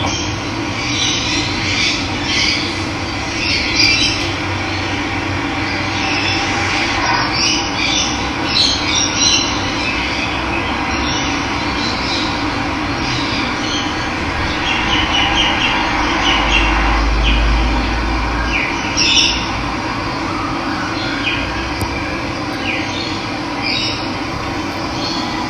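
Steady rush of running water with wild birds chirping and calling over it, off and on throughout. A low rumble rises under it for about two seconds, roughly two-thirds of the way in.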